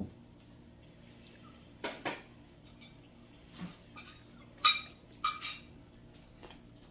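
A few separate clinks and clatters of dishes and cutlery, the loudest about two thirds of the way in.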